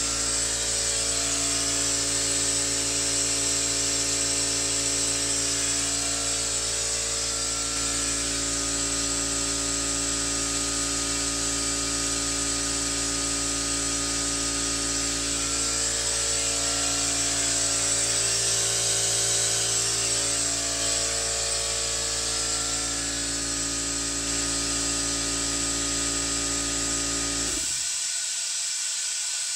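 Air compressor running steadily, with a constant hiss of compressed air rushing through a venturi adapter that is pulling vacuum on a car's cooling system. Near the end the compressor's motor cuts off abruptly, leaving only the hiss of air.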